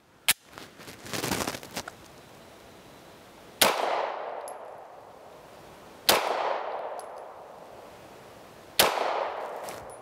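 Walther PDP F 9mm pistol fired three times, about two and a half seconds apart, each shot trailing off in a long echo.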